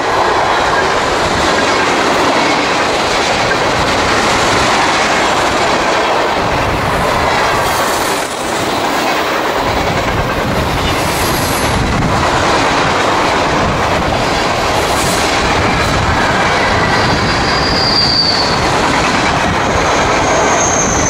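Freight train cars rolling past at speed close by: a steady rumble and clatter of steel wheels on the rails, with brief high wheel squeals near the end.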